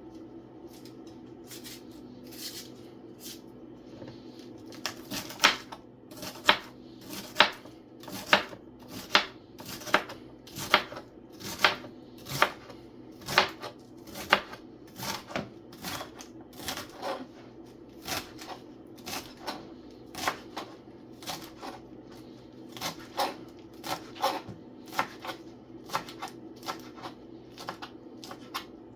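Knife chopping vegetables on a cutting board: sharp, regular strikes at roughly one a second, faint at first and loud from about five seconds in, over a steady low hum.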